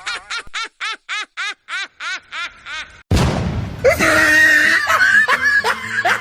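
Cartoon sound effects: a run of about ten short chirps, each rising and falling in pitch, over the first three seconds. A sudden loud burst follows, then a busy mix of squeaky, quick sounds.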